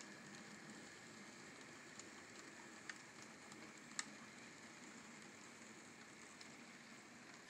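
Faint, steady running noise of an N scale model train rolling past, with a few sharp clicks; the loudest click comes about four seconds in.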